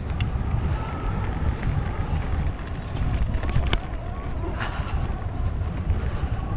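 Mountain bike riding fast down a dirt trail: steady rumble of tyres and wind rushing over the microphone, with a few sharp knocks as the bike goes over bumps.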